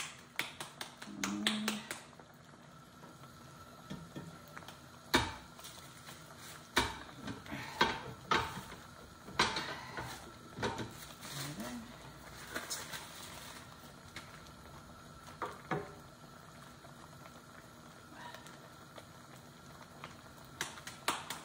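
Hands slapping a ball of corn masa in quick succession, then scattered knocks and crinkling plastic as a tortilla press is closed and opened, with another quick run of slaps near the end.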